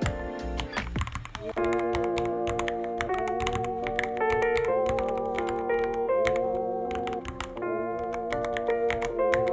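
Typing on a Ducky One 3 mechanical keyboard: a run of uneven key clicks and clacks. Background music with long, wavering notes plays over it.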